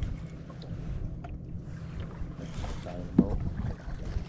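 Boat motor running steadily at slow trolling speed, a low even hum, with wind on the microphone.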